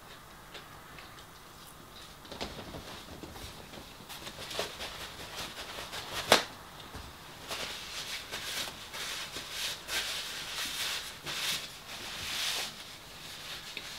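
Faint chewing clicks, then tissue being pulled off a toilet roll, with one sharp tearing click about six seconds in. A run of papery rustles follows as the tissue is crumpled and used to wipe the mouth.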